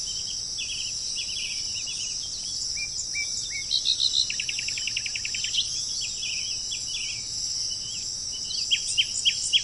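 Several birds chirping and whistling, with a rapid trill about five seconds in and a run of sharp falling notes near the end, over a steady high-pitched insect drone.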